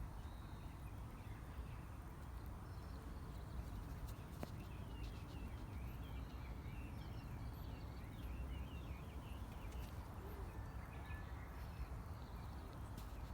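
Faint outdoor ambience: a low steady rumble with a run of quick, small bird chirps through the middle, and a couple of faint clicks.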